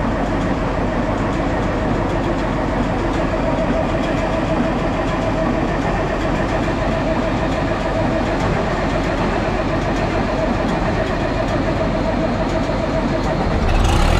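Diesel farm tractor engine idling steadily while warming up after a cold start on a frosty morning. Near the end, a louder, deeper engine sound comes in.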